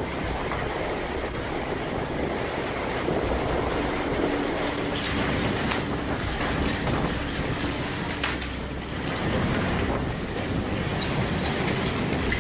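Storm wind and torrential rain, a steady loud rush of noise that swells and eases with the gusts.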